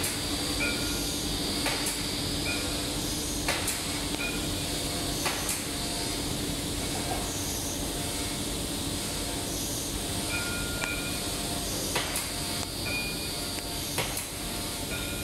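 Factory machinery ambience: a steady hum and hiss, with scattered sharp clicks and short high chirps repeating about once a second.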